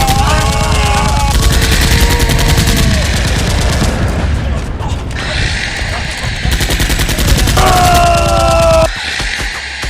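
Rapid bursts of automatic gunfire, a dubbed machine-gun sound effect standing in for toy foam blasters in a mock firefight.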